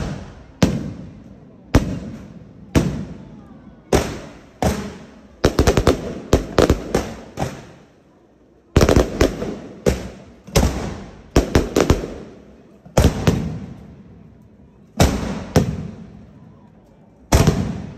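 Fireworks exploding: a long, irregular series of sharp bangs, each trailing off, at times several in quick succession. There is a brief pause about eight seconds in.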